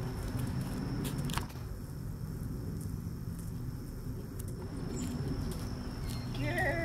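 Outdoor background noise: a steady low rumble, a couple of sharp clicks about a second in, and a brief chirping near the end.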